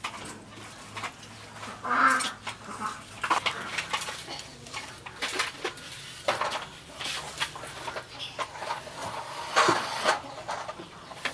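Cleaver knocking and scraping against a whole fish on a wooden chopping board as the fish is scored, in irregular strokes. Two louder sounds come about two seconds in and near the end.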